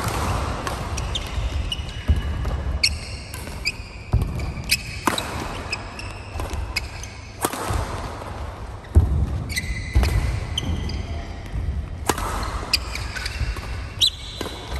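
Badminton rally: rackets smacking a shuttlecock back and forth, a sharp hit every second or two, with sports shoes squeaking on the court mat between hits in an echoing hall.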